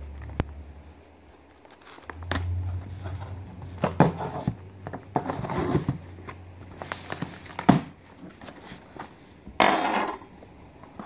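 Cardboard shipping box and its packing being handled and opened: knocks, rustling and crinkling, with a short loud rasping burst near the end.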